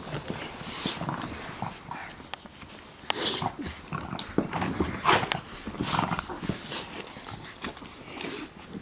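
Boston terrier puppies playing together, making a rapid, irregular run of short whimpering vocal sounds mixed with clicks and scuffles.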